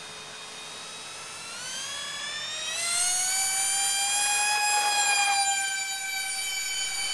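Radio-controlled Learjet 45 model's jet motors whining, rising in pitch as they throttle up for the takeoff roll. The pitch then holds high and steady, growing louder through the middle as the model lifts off and climbs away.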